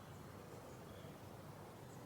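Faint garden ambience: a steady low background rumble, with a faint short bird chirp about a second in.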